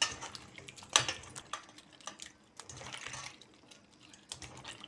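Cauliflower florets being washed by hand in turmeric water in a steel bowl: irregular small splashes and clicks as the florets are swished and knocked together, with a short sloshing about three seconds in.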